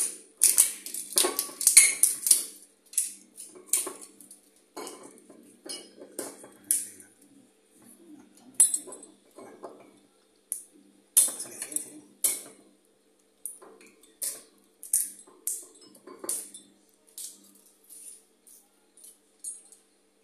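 Cutlery and dishes clinking: irregular sharp clinks and taps, one or two a second, loudest in the first few seconds and fainter afterwards, over a faint steady hum.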